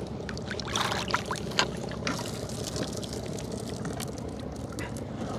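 Water splashing and trickling with scattered knocks and clicks as a gillnet is handled from a small fishing boat, over steady low noise; a louder splash comes about a second in.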